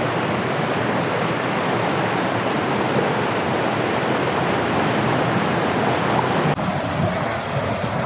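A fast mountain river rushing steadily over rocks and riffles. About six and a half seconds in, the rushing turns slightly duller at an edit.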